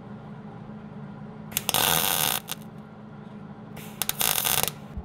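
Miller 141 MIG welder laying two short tack welds on thin new floor-pan sheet metal: two bursts of arc crackle, each just under a second, about a second and a half in and again near four seconds, with a few short pops around them. A steady low hum runs under them.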